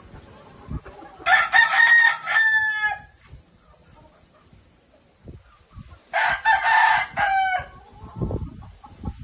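A gamecock crows twice, each crow a held call that ends in a falling, stuttering tail. Near the end come soft low flaps as the bird shakes out its feathers.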